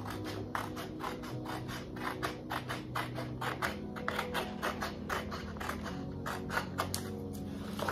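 Scissors snipping through a paper print, cutting off its white border in a run of short strokes, about three or four a second.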